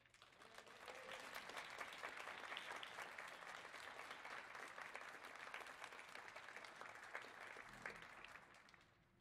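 Audience applauding. The clapping swells over the first second, holds steady, then fades away near the end, with one brief knock just before it dies out.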